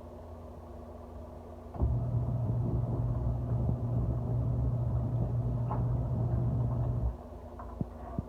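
Motor of an Auertech twin-tub portable washing machine starting abruptly with a loud, steady low hum, running for about five seconds, then cutting off, over a faint low rumble.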